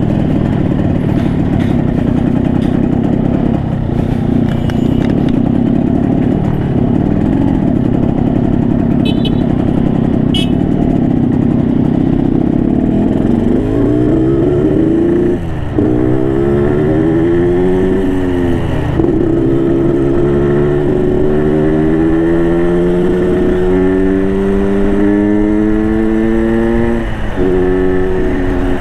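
Yamaha RX King's 135cc two-stroke single-cylinder engine running on the move through its stock exhaust, in the Medan 'ngorok' growling tune. About halfway in, the engine note climbs under throttle, drops off sharply at a shift, and climbs again several times as the bike pulls through the gears.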